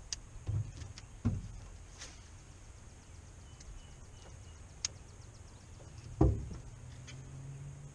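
Faint clicks and knocks of fishing tackle and feet on a boat deck, with one louder thump about six seconds in. A low steady hum starts about a second later.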